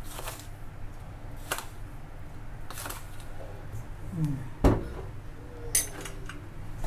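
A metal spoon clicking and tapping against a plastic salt bottle and a stainless steel bowl as salt is spooned out and sprinkled onto raw chicken: five or so separate sharp taps, the loudest a little past the middle.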